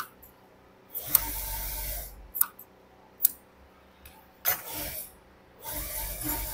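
Large steel tailor's shears clicking sharply several times while cutting a collar piece, with stiff paper-backed fabric rustling and scraping on the cutting table in two longer stretches, about a second in and near the end.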